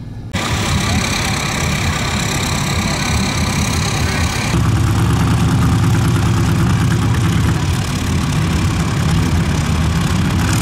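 Lifted off-road trucks' engines running steadily. About four and a half seconds in, the engine sound gets louder and deeper.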